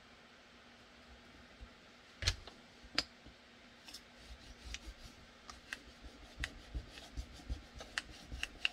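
Handling of aluminum blocking strips and blue painter's tape on a workbench: two sharp knocks about two and three seconds in, then a run of light clicks and rubbing as the tape is pressed and smoothed down.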